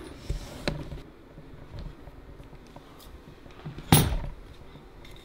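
Quiet handling of pine boards and flat metal corner brackets, with a light knock under a second in and one sharp clack about four seconds in.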